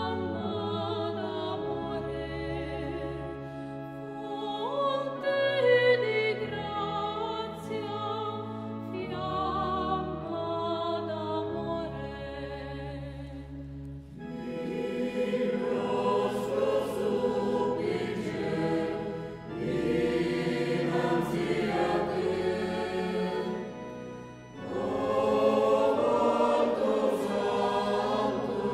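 Choral music: voices singing slow, sustained notes over held low bass notes, swelling into a fuller choir about halfway through.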